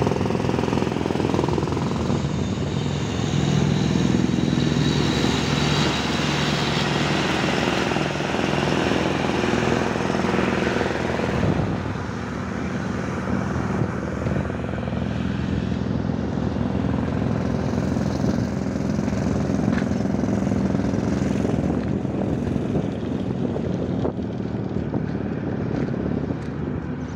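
Chicago Pneumatic portable air compressor running steadily with a low engine drone. It gets a little quieter about twelve seconds in.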